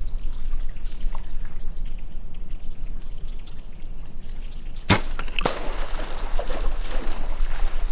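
Bow shot at a sika stag: a single sharp crack of the bowstring releasing about five seconds in, a second, smaller crack half a second later, then rustling and crackling through brush and water as the deer runs.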